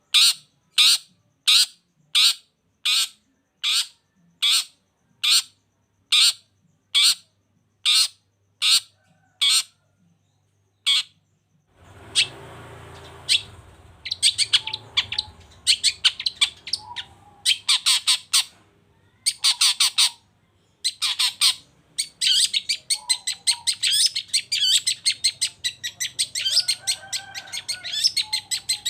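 Long-tailed shrike calling: a harsh call repeated evenly, about three every two seconds, for some eleven seconds. After a short gap, rapid chattering song comes in bursts over a background hiss.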